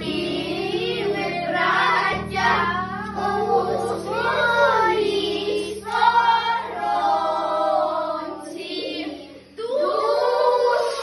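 A group of children singing a song together, with a brief break near the end, over a steady low hum.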